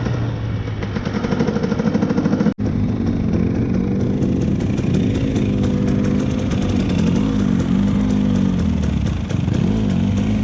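Dirt bike engine running, its revs rising and falling so the pitch wavers up and down. The sound breaks off for an instant about two and a half seconds in.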